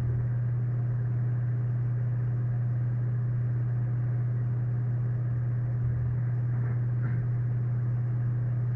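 A steady low hum with a few faint overtones holds an even level throughout, with a faint short sound about seven seconds in.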